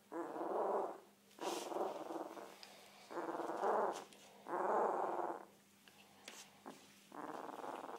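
A one-week-old komondor puppy makes a run of short, rough vocal sounds, about five of them, each under a second and roughly one and a half seconds apart.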